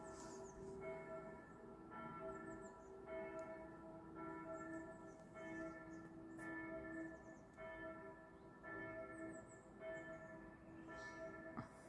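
Church bells ringing, a new stroke about once a second, each leaving a long ringing hum.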